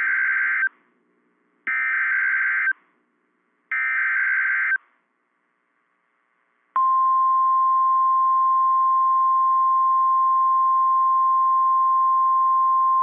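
Emergency Alert System header: three one-second bursts of warbling SAME digital data, about two seconds apart. About seven seconds in, a steady single-pitch warning alarm tone starts over a hiss of radio static and holds. The single tone is the 1050 Hz alarm of NOAA Weather Radio.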